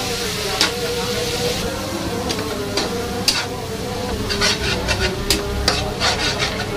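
Slotted metal spatula stirring lemon basil leaves and chili paste as they sizzle in oil in a nonstick frying pan. The spatula's scrapes and sharp taps against the pan come more often in the second half.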